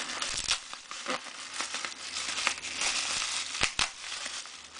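Wrapping crinkling and rustling as a small gift package is unwrapped by hand, with a few sharp crackles.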